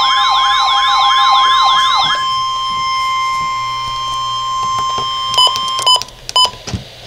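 NOAA Weather Radio warning alarm: a steady tone near 1 kHz with higher steady tones above it. For about the first two seconds a warbling siren tone rises and falls over it, about three times a second. The steady tone ends with a few short beeps near the end.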